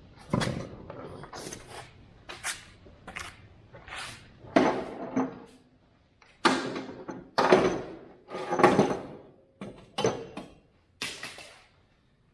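Irregular knocks and clanks, about a dozen over several seconds, some with a brief ringing tail, from mower deck parts and tools being handled during reassembly.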